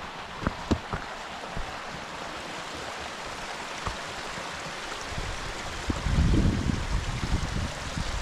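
Steady rush of running stream water, with a few light clicks in the first second and wind buffeting the microphone from about six seconds in.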